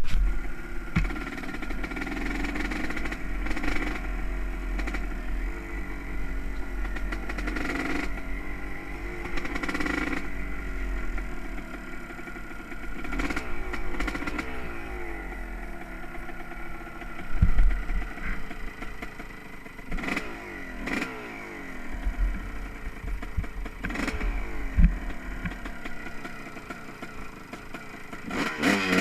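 Honda CR250R's single-cylinder two-stroke engine being ridden, its revs rising and falling again and again, with occasional knocks and thumps.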